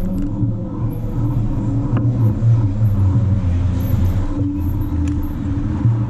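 Steady low rumble of city road traffic around a moving bicycle, with cars passing at an intersection.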